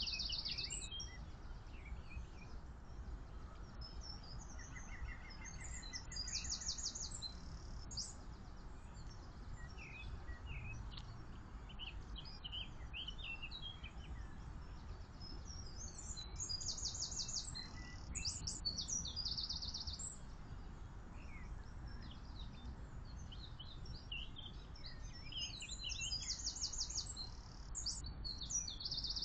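Songbirds singing: short, high, rapidly trilled phrases and chirps that come in clusters about every ten seconds, over a steady low rumble.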